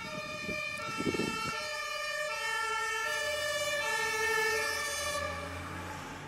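Two-tone siren of a SAMU emergency car, alternating steadily between two pitches and stopping about a second before the end.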